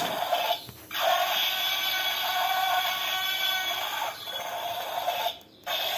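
Battery-powered toy dinosaur playing its electronic sound effects through a small built-in speaker: a steady pitched tone that breaks off briefly about a second in and again near the end.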